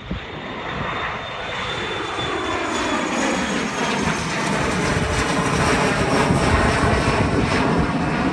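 Twin rear-mounted Rolls-Royce AE 3007 turbofans of an ERJ-145 regional jet at climb power just after takeoff. The jet noise grows steadily louder as the plane climbs out overhead, with a faint high whine that dips slightly in pitch.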